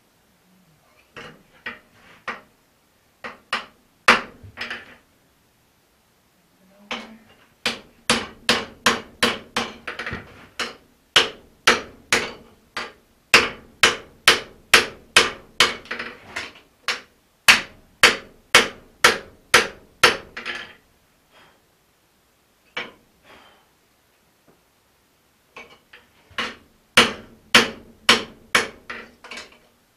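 Blacksmith's hand hammer striking a red-hot axe head on an anvil, forging the blade to shape. It starts with a few light blows, then a long run of steady blows at about two to three a second, a short pause, and another run near the end.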